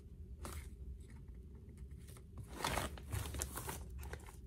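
Rustling and crinkling of school bags being handled and rummaged through: a short rustle about half a second in, then a longer run of rustling from about two and a half seconds in.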